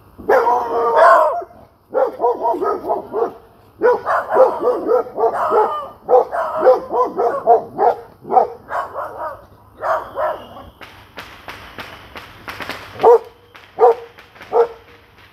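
A dog barking in a fast, excited run of barks, ending with three separate sharp barks near the end.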